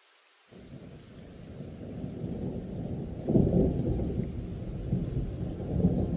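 Low rumble that starts suddenly about half a second in, builds, and is loudest a little past the middle.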